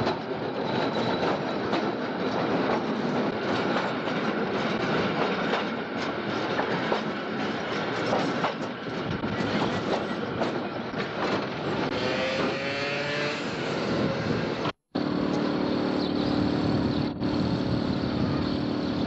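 Tram running on its rails, a continuous rumble and rattle of wheels on track, with a faint rising whine about twelve seconds in. The sound cuts out for an instant about fifteen seconds in and resumes with a steady low hum over it.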